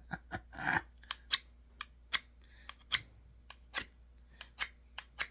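Bushcraft knife's spine scraped repeatedly down a ferrocerium rod to strike sparks: about a dozen short, sharp, irregularly spaced scrapes, one a little longer about a second in.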